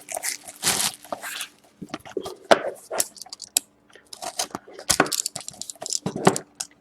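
Irregular crackling, crinkling and tearing of plastic wrap and cardboard as a sealed hockey card box is unwrapped and opened by hand.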